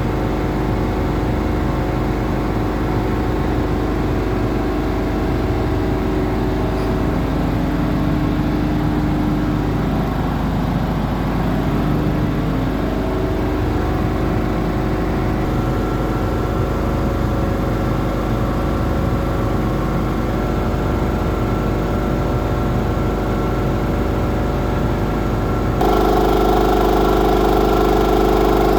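Hatlapa V200 marine air compressor running steadily on a test bench, a continuous mechanical drone with several steady tones; near the end it becomes louder and its tone changes.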